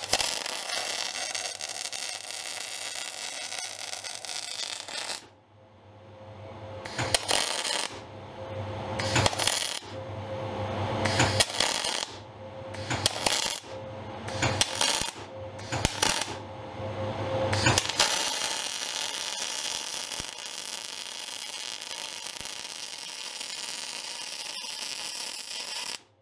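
MIG welder arc crackling and sizzling as beads are laid on plate: a steady stretch of about five seconds, then about six short stop-start welds, then one long unbroken bead from about two-thirds of the way in.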